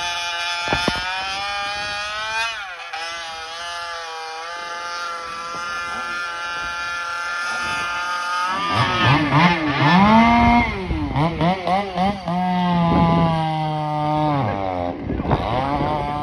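Gas chainsaw running at high revs and cutting a slice off the end of a log. About halfway through, the engine note gets louder and its pitch wavers and dips again and again as the chain works under load in the cut.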